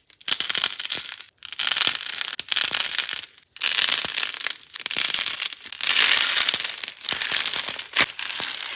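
Gold-painted soft clay squeezed and crushed by hand, the dried paint shell crackling and crinkling as it breaks up. The crackling comes in bursts of a second or two, with brief pauses about a second in and again around three and a half seconds in.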